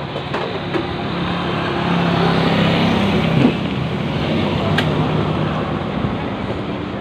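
A passing road vehicle's engine, growing louder to its peak about three seconds in and then fading, with a sharp click near the end.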